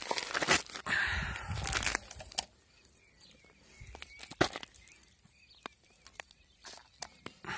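Rustling and scraping handling noise for about two seconds, then mostly quiet with scattered small clicks and ticks. The truggy's nitro engine is not running.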